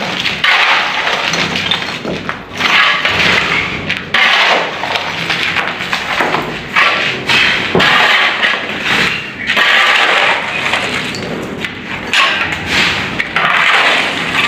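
Steel shovel blade scraping across a concrete floor and scooping broken concrete rubble and dust, in repeated strokes about every second or two.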